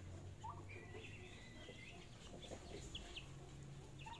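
Young turkeys calling faintly while they feed: a few short, high peeps and one longer high call about a second in.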